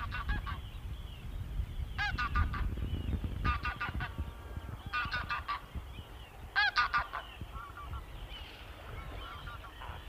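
Greylag goose calls: bursts of quick nasal honks, a cluster every second or two, growing fainter and sparser in the last few seconds, over a low rumble.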